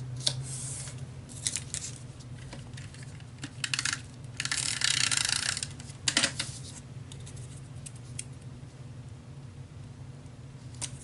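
Paper being handled on a scrapbook layout: a run of short scratchy rustles and a few light taps, the longest and loudest a rustle of about a second near the middle.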